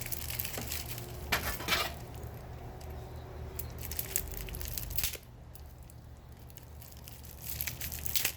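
Packaging being handled and crinkled while accessories are pulled from a product box: scattered rustles and clicks, with louder bursts of crinkling about a second and a half in and again near the end, over a steady low hum.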